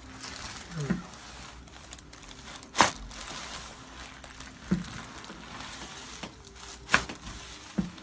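Crinkling and rustling from handling and body movement during a chiropractic adjustment, broken by two loud sharp clicks about three and seven seconds in and two fainter ones between.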